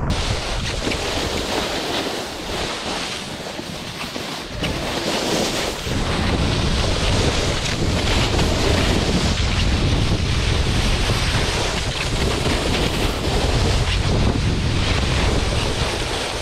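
Wind buffeting the microphone with a heavy low rumble, over the hiss and scrape of a snowboard sliding and carving on snow. The rumble eases for a moment about three seconds in, then returns.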